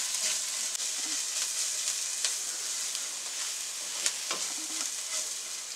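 Chopped onions and ground spices frying in oil in a nonstick pan with a steady sizzle, as a silicone spatula stirs them, with a few light scrapes against the pan.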